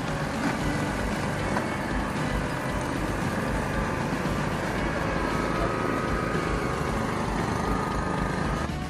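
Engine of an OREC RMJ800 ride-on mower running steadily under way.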